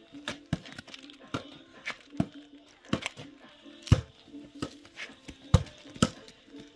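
A series of sharp knocks or chops, about eight of them at a little over one a second, unevenly spaced, over a faint low steady hum.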